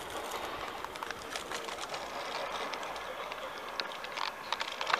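Zipline trolley pulley rolling along a steel cable: a steady rushing whir with scattered sharp clicks, a little louder near the end as the rider comes in.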